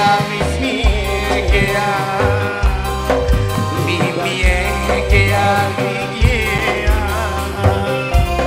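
Live music from a sandiwara troupe's ensemble, gamelan instruments and drums, with a steady pulsing beat and a wavering melody line on top.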